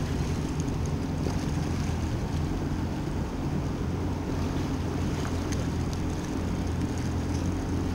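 Yamaha 190 FSH jet boat's engine running steadily at low speed, an even low drone.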